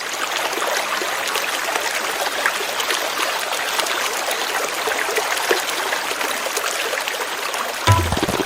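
Water in a stream running steadily. Tabla music with drum strokes comes in near the end.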